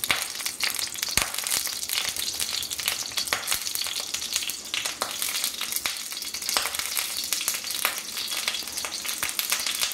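Mustard seeds spluttering in hot coconut oil in a kadai: a steady sizzle with many sharp pops as the seeds burst. This is the tempering stage, and the popping means the oil is hot and ready for the onion.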